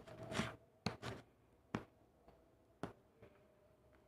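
Fingers brushing and pressing the flip sequins on a Rainbocorns toy: a short rustle near the start, then a few sharp taps spread over the next two seconds.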